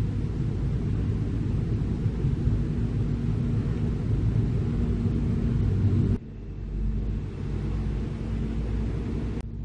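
Heavy diesel machinery running with a steady low rumble. The sound drops and changes suddenly about six seconds in, and again near the end.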